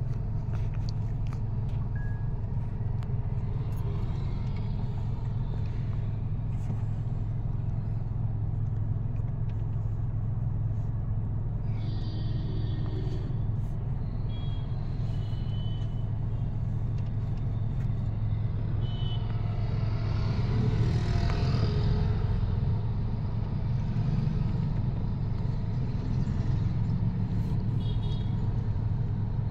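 Road traffic and a car's engine heard from inside the car: a steady low rumble, with a few short high tones about twelve seconds in and again near the end, and the traffic growing louder about twenty seconds in.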